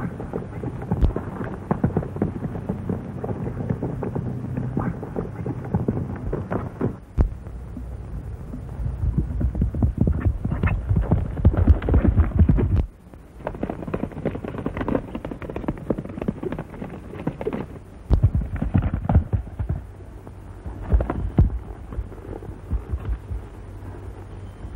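Horse hoofbeats, a fast, dense thudding of a galloping horse, over the steady hum of an old film soundtrack. The hoofbeats change abruptly several times, with a brief drop just before the middle.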